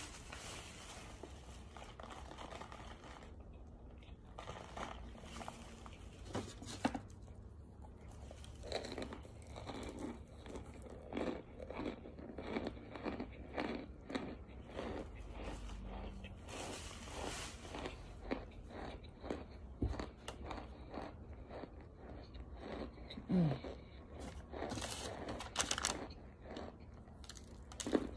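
Chunks of compressed cornstarch being bitten and chewed close to the microphone: a few scattered crunches, then a steady run of chewing crunches about two a second, with a louder bite near the end.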